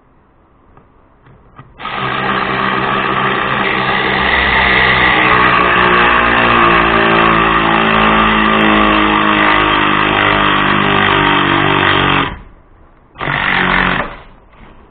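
Cordless 3/8-inch electric ratchet motor running for about ten seconds as it drives a bolt into wood, then stopping, with one short burst about a second later. The owner thinks this ratchet has a weak battery.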